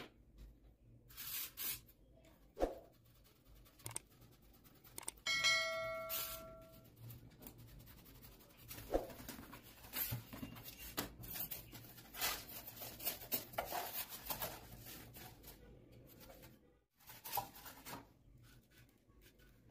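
Craft knife cutting through a sheet of white foam board: scattered short scraping, tearing strokes. About five seconds in, a bell-like ding rings for a little over a second.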